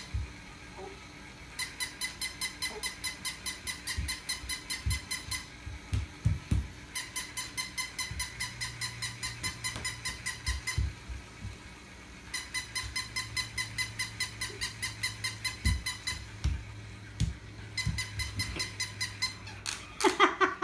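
Battery-powered plush toy puppy sounding off: a fast, even string of high electronic beeps, about five a second, in runs of roughly four seconds with short pauses between. Soft thumps from a toddler moving on a tiled floor are heard under it, and a child's voice comes in near the end.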